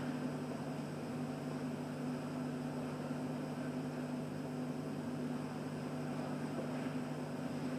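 Steady low hum with a faint even hiss: room tone, with no distinct events.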